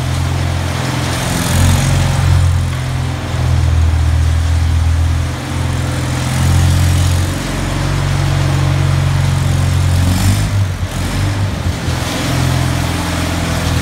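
The 24 hp Onan gasoline engine of a Multiquip Whiteman ride-on concrete trowel running steadily as the trowel is driven and steered around. The engine note turns uneven for a couple of seconds about ten seconds in, then steadies again.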